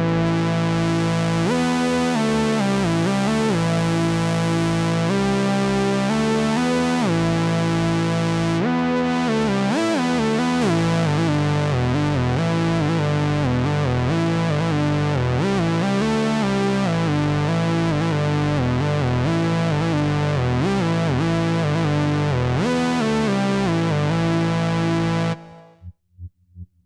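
AJH Synth MiniMod Eurorack modular synthesizer playing a bright, buzzy melodic line with notes that glide from one pitch to the next. It stops abruptly near the end, leaving a faint, evenly repeating pulse.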